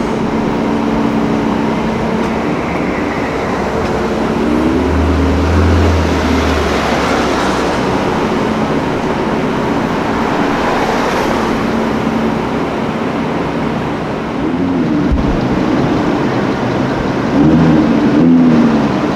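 Car engines running in street traffic, their pitch rising and falling as the cars move off. A deep engine note swells for a second or two about five seconds in, and engines rev up near the end.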